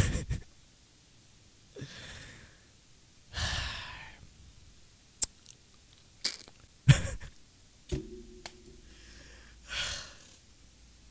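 A man laughing almost silently, so hard he is out of breath: a string of sharp breathy exhales and gasps every second or two, with a short wheezy squeak about eight seconds in.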